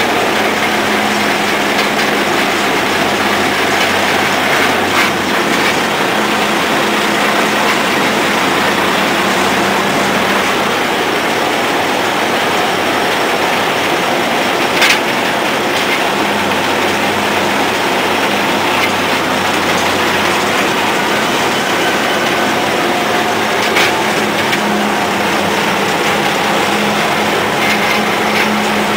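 The Cummins diesel engine of a 1930 Moore Speedcrane model 1500 running steadily, heard from inside the crane's machinery house among its gears and drums. A few sharp metallic clanks cut through, the loudest about halfway through.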